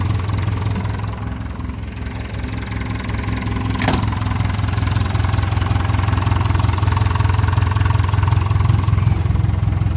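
Case 580K backhoe's diesel engine idling steadily, its low drone a little louder after about four seconds. A single sharp click about four seconds in, from the cab door latch being worked.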